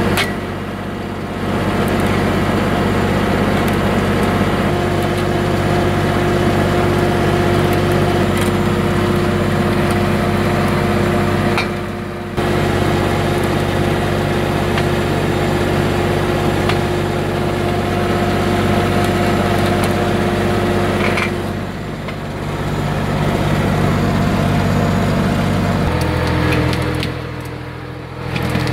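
Tractor engine running steadily under load, powering a hydraulic skidding winch that is hauling a chained Douglas fir log in on its steel cable. The sound dips briefly a few times, and the engine note drops a few seconds before the end.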